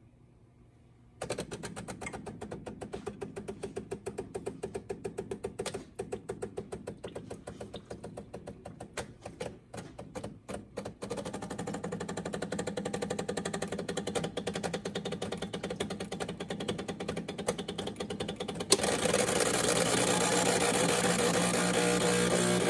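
Decent DE1Pro espresso machine's vibratory pump pulling an espresso shot. It starts about a second in with a fast, uneven pulsing, runs steadier from about eleven seconds in, and about nineteen seconds in turns louder and continuous.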